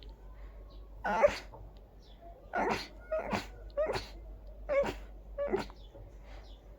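A person sneezing in a rapid fit: about six short, sharp sneezes, each coming within a second of the last, the first of them the loudest.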